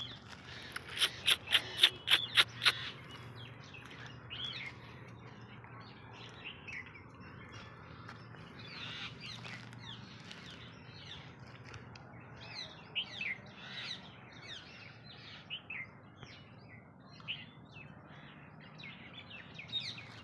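A small bird chirping in many short, quick, falling notes, more densely near the end. Early on, a quick run of about eight sharp clicks is louder than the chirps.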